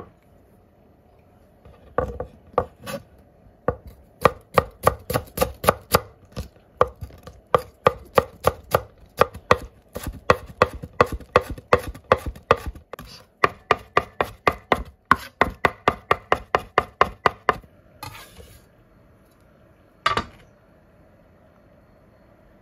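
Chef's knife mincing pickled rakkyo bulbs on a wooden cutting board: a long run of quick, sharp knocks on the board, several a second. Near the end there is a brief scrape, then one last knock.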